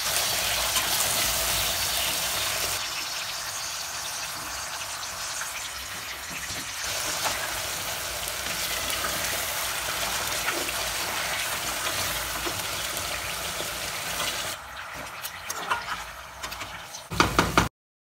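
Yam sticks deep-frying in hot oil: a steady sizzle of bubbling oil. It drops a little near the end, with scattered clicks and a few sharp clatters just before it cuts off suddenly.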